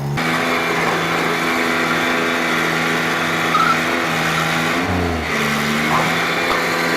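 A vehicle engine running steadily with a constant hum and a noisy mechanical wash, briefly dipping about five seconds in.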